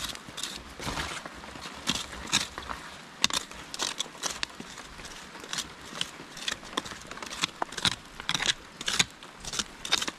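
Wooden digging stick scraping and jabbing into gritty, stony soil: an uneven run of short scratches and clicks, several a second.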